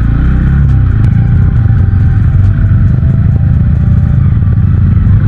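Motorcycle running on the road, a loud steady low rumble.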